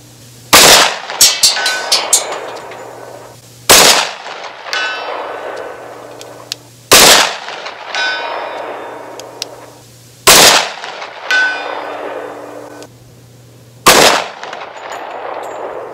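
Five shots from a 10mm pistol, about three seconds apart. About a second after each of the first four, a steel target at 200 yards rings back. The fifth shot brings no ring: a miss.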